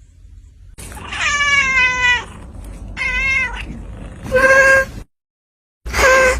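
Kitten meowing four times: a long drawn-out meow about a second in, two shorter meows, then after a second of dead silence a last meow near the end.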